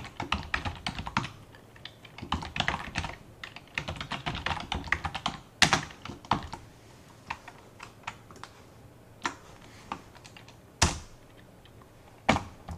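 Typing on a computer keyboard: quick runs of key clicks broken by short pauses, with a few louder single keystrokes in the second half.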